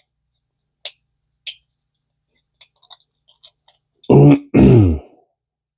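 Scattered light clicks and ticks of small reel parts being handled, then, about four seconds in, two short wordless vocal sounds from a man, the second falling in pitch.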